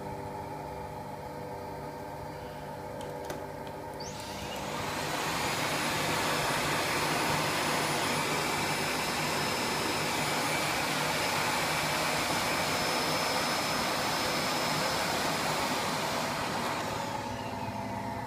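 A Siemens iQ700 front-loading washing machine turning its drum with a steady low hum. About four seconds in, a Miele S8310 vacuum cleaner starts up, and its motor rises within a second to a steady whine and rush of air that drowns out the washer. It winds down near the end, leaving the washer's hum.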